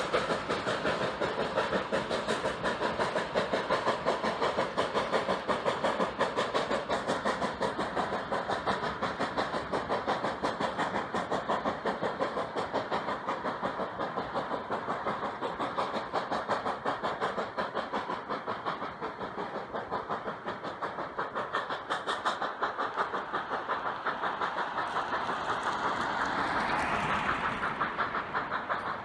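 Distant K-28 2-8-2 steam locomotive pulling a passenger train, its exhaust chuffing in a quick, even rhythm that grows a little fainter as the train moves away. A brief swell of noise rises and falls near the end.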